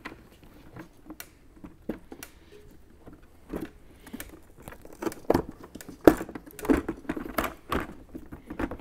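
Outer fairing of a Harley-Davidson Street Glide being worked into place by hand: scattered clicks, knocks and rubbing as it is fitted over the headlight. The loudest knock comes about six seconds in.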